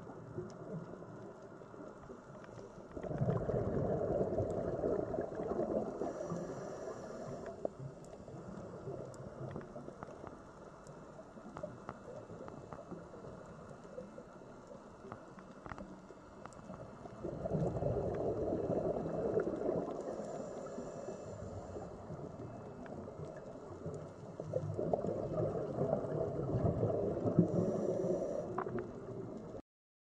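Underwater recording of a scuba diver's exhaled bubbles gurgling out of the regulator in three swells of a few seconds each, about ten to fourteen seconds apart, with faint scattered clicks between them. The sound cuts off abruptly just before the end.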